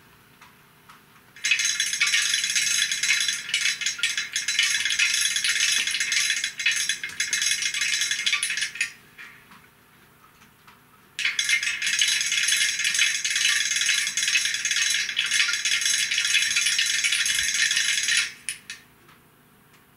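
Piko model class 118 diesel locomotive's sound decoder playing a harsh, high rattling noise through its small onboard speaker. It comes in two bursts of about seven seconds each, the first starting about a second and a half in and the second about eleven seconds in.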